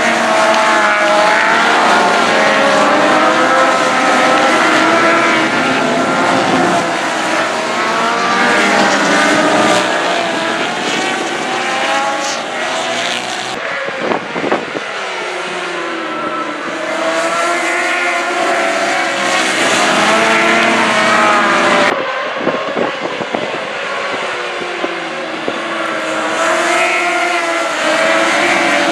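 A pack of racing superbikes at high revs, several engines overlapping and rising and falling in pitch through gear changes as they sweep past. The sound eases off twice as bikes move away, then builds again as more arrive.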